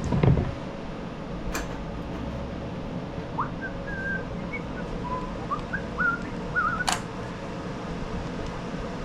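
Steady hum of background machinery, with a knock at the start and two sharp clicks as parts go back onto a small engine. A series of short, high, warbling whistled chirps sounds in the middle.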